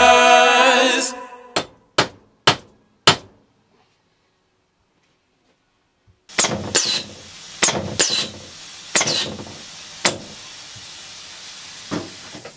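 Music fading out, then four sharp clicks and a pause. Then a pneumatic air cylinder cycles under solenoid valves: sharp clacks with bursts of compressed-air hiss over a steady hiss.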